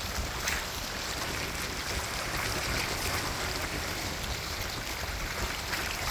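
Steady rush and splash of water along the hull of a Hobie Mirage Tandem Island trimaran under sail, with wind buffeting the microphone.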